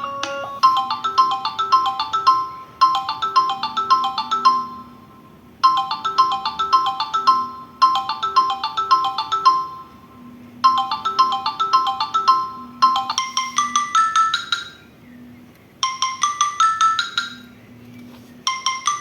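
Samsung Galaxy Young 2 ringtone playing: a marimba-like melody of quick note runs in phrases about two seconds long with short gaps, the same phrase repeating five times before switching to a different, rising figure about two-thirds of the way through.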